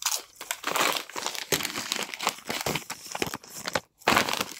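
A snack chip bag crinkling and rustling as it is tipped up to the mouth and shaken out, with a brief break shortly before the end and then more crinkling.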